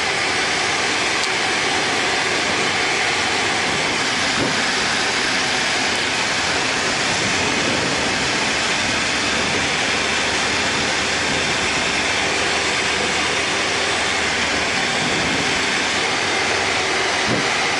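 Tecnam P92 Eaglet light aircraft in flight, heard from inside the cockpit: a steady, loud drone of engine, propeller and airflow with no change in power.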